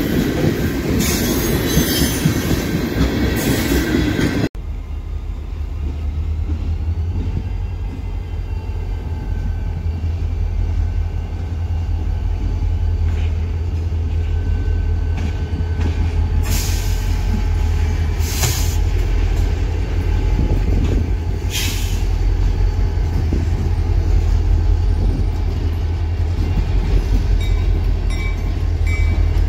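Freight train rolling past at a grade crossing, with loud rail and wheel noise from its tank cars. About four seconds in this cuts to a CSX diesel-electric locomotive moving slowly past with a steady deep engine rumble, and a few sharp metal clanks in the second half.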